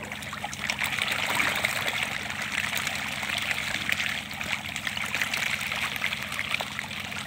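Many fish splashing and thrashing together at the surface of a biofloc tank, a dense steady patter of small splashes that swells about half a second in. The fish crowd the surface eagerly, which the farmer takes as the sign of healthy water.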